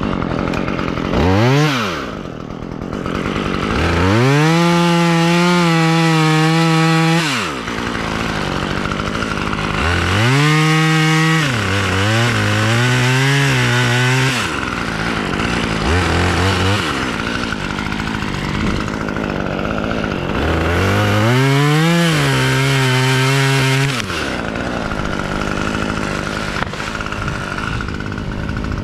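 Husqvarna chainsaw revved to full throttle in several runs of a few seconds, each falling back to idle, the engine note sagging under load as it cuts through tree limbs.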